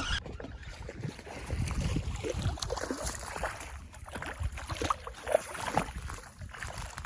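Water splashing and sloshing in the shallows, with wind rumbling on the microphone, as a small hooked striped bass is reeled in and landed.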